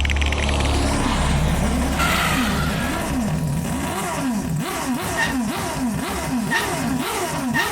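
Motorcycle engine sound effect revving up and down over and over, its pitch rising and falling about twice a second, over a deep steady hum in the first second.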